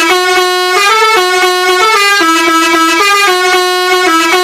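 Indonesian 'telolet' bus air horn playing a tune, its notes stepping up and down without a break.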